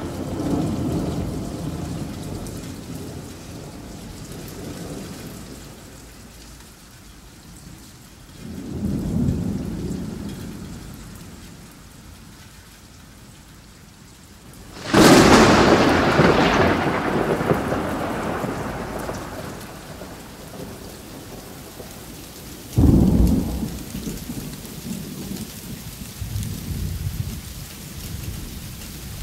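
Thunderstorm: steady rain with rolling thunder. A low rumble swells about a third of the way in, a sudden loud thunderclap comes about halfway and rumbles away over several seconds, and a shorter crack follows near the end.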